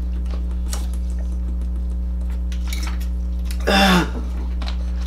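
Fork clinking and scraping against plastic bowls while eating noodles, over a steady low electrical hum. About four seconds in there is a brief, louder mouth sound.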